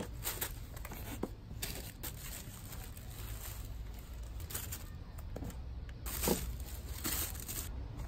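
Tissue paper and clothes rustling and crinkling as they are handled in a cardboard box, in short irregular bursts, the loudest a little after six seconds in, over a low steady hum.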